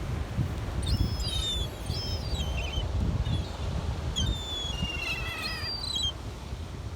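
Gulls calling in several groups of shrill cries, with a run of short repeated notes about four to five seconds in, over a steady low rumble.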